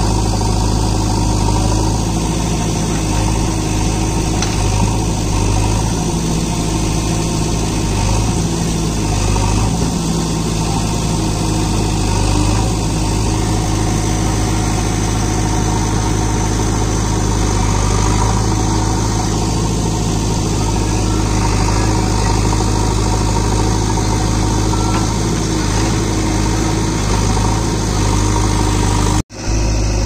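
JCB 3DX backhoe loader's four-cylinder diesel engine running steadily at close range, a constant hum with no break. The sound cuts out for a moment near the end.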